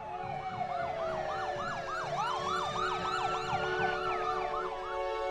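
Several emergency-vehicle sirens sounding together: one in a fast yelp, about three sweeps a second, over slower rising and falling wails. The yelp stops shortly before the end, leaving steady held tones.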